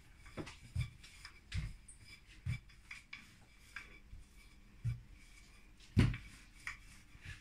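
Brioche dough being rolled out on a floured table: soft, irregular knocks and thuds, the loudest about six seconds in.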